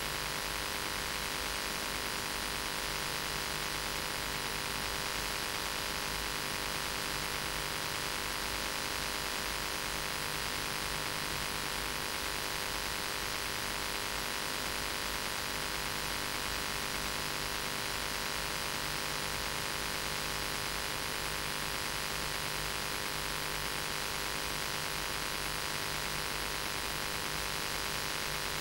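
Steady recording hiss with an electrical mains hum and several steady buzzing tones, unchanging throughout, with no speech coming through.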